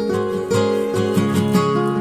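Background music: an acoustic guitar playing a melody of held, plucked notes that change pitch in steps.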